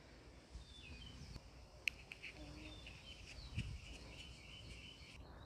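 Faint outdoor background of birds chirping, with a single sharp click about two seconds in and a soft knock a little later.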